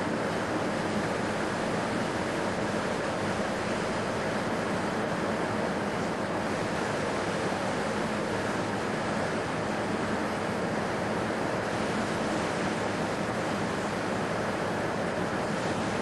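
A steady, even rushing noise with no distinct sounds standing out of it.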